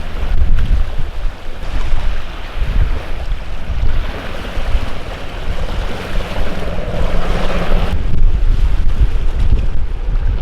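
Wind buffeting the microphone in an irregular low rumble, with a rushing hiss that swells and cuts off about eight seconds in.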